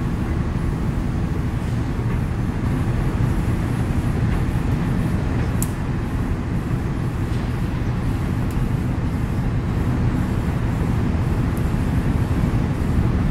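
Volvo EC300DL crawler excavator's diesel engine running with a steady low rumble as the machine drives slowly down a steel ramp.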